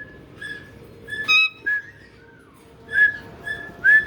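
Caique parrots whistling: a string of short, clear notes on one high pitch, broken about a second and a half in by a sharp harsh call, with more whistles near the end, one sliding upward.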